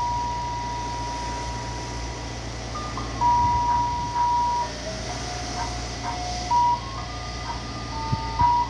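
Ice cream truck's roof loudspeakers playing an electronic chime jingle: single pure notes stepping up and down, with one long held note for the first two and a half seconds and shorter notes after it. Under it is a steady low hum from the truck's engine idling.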